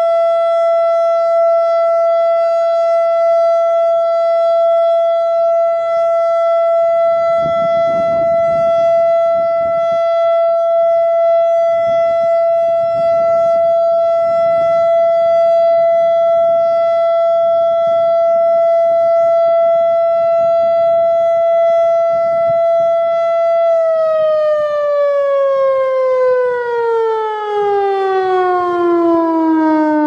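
ASC Quadren Q-3200 electronic outdoor warning siren sounding its loud, steady single-tone Alert signal. Near the end the pitch glides smoothly down as the signal winds down.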